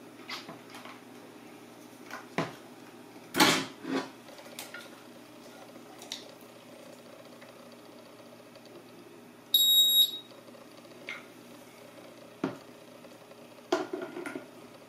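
Scattered clicks and knocks of equipment being handled, with one short high-pitched electronic beep about ten seconds in.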